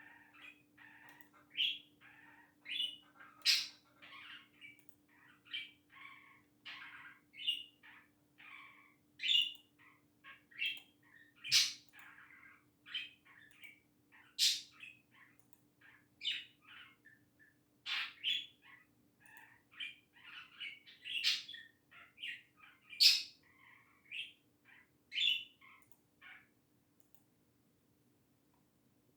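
Pet budgerigar chattering: a quick, busy run of chirps, warbles and sharp squawks, stopping a few seconds before the end. A faint steady hum sits underneath.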